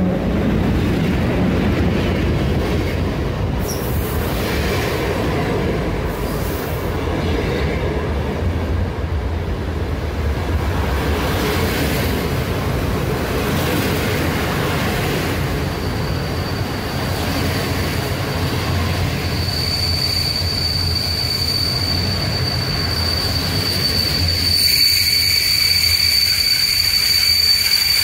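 Passenger train moving through a station, its wheels and cars rumbling steadily. About halfway through, a high steady wheel squeal starts, and it grows stronger and richer near the end.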